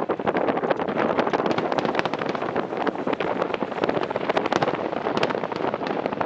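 Fireworks display: a dense, continuous crackle of many small bangs and pops, without a break.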